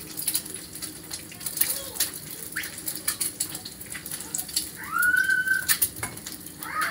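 Food frying in a pan on a gas stove, crackling steadily, with scattered light clicks of a utensil against the pan. About five seconds in, a child gives one brief high-pitched vocal sound that rises and then holds.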